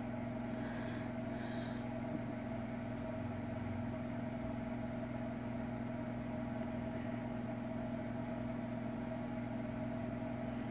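A steady low hum from a running machine, unchanging throughout.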